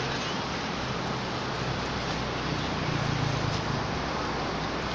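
Steady outdoor background noise: a continuous hiss with a low rumble that swells slightly about three seconds in.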